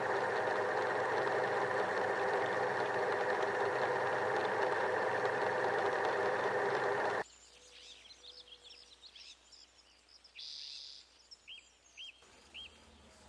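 A loud, steady mechanical whirring that cuts off suddenly about seven seconds in. Then quiet outdoor ambience follows, with a bird giving short chirps at a regular pace near the end.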